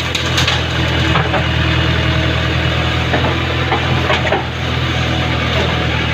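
JCB backhoe loader's diesel engine running steadily under work, with a few sharp cracks and snaps of wood from the tree being cleared, mostly near the start and about halfway through.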